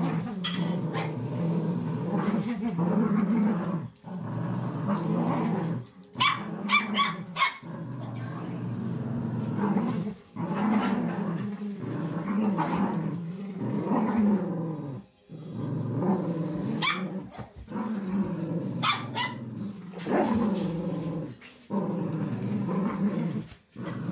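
Cavalier King Charles spaniels play-growling over a rope toy in long low runs with short pauses between them. Clusters of sharp yappy barks come about six seconds in and again around seventeen seconds.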